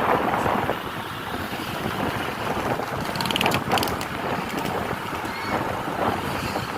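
Tour bus travelling on the road: steady engine and road noise with wind buffeting the microphone, and a brief patter of light clicks about three seconds in.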